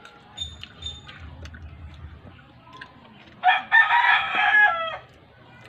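A rooster crows once, a loud call lasting about a second and a half that starts about three and a half seconds in and drops in pitch at its end.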